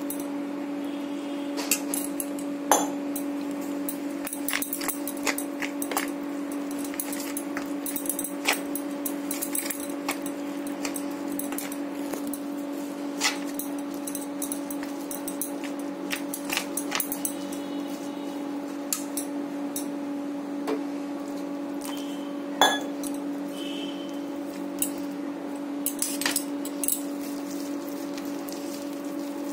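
A spoon clinking and scraping irregularly against a steel plate while dry flour is stirred with a little water into batter, over a steady low hum.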